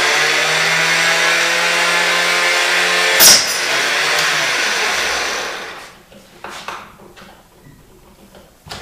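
Small benchtop chop saw's motor running at a steady whine. About three seconds in there is a short, sharp burst as the blade cuts through the neck of a .223 brass case, then the motor spins down, its pitch falling until it fades out.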